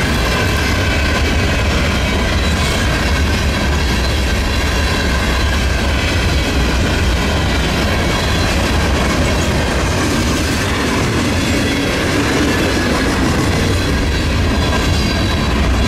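Canadian Pacific freight train rolling steadily past, its rail cars making a loud continuous rumble, with a faint high squeal from the wheels.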